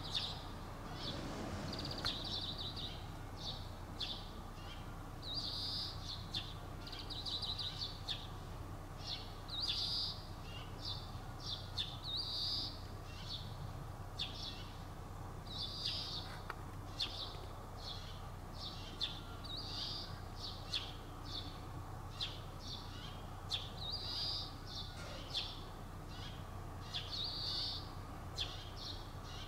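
Small birds chirping, short high calls in little runs every second or two, over a low steady background hum.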